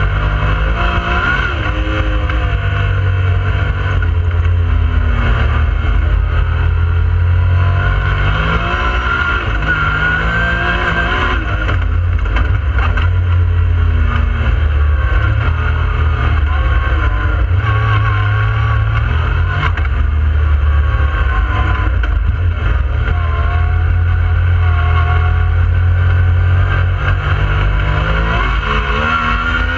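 Yamaha YXZ1000R side-by-side's three-cylinder engine heard from inside the cab while driving, its revs climbing and dropping back again and again as it accelerates.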